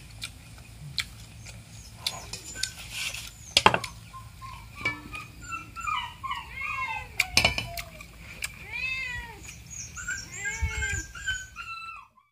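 Cats meowing over and over, short rising-and-falling calls that overlap as if from more than one animal. A couple of sharp knocks come about four and seven seconds in.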